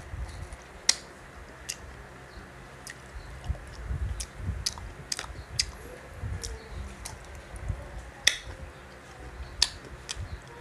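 Close-miked eating of soft Indian mango flesh: wet chewing and lip smacks, with irregular sharp mouth clicks about once a second.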